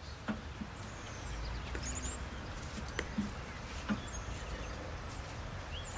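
Faint bird chirps over a low, steady background rumble, with a few light clicks scattered through.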